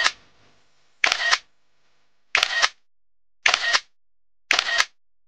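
Camera shutter clicks, the same short shutter sound repeated four times about once every second and a quarter, with near silence between them.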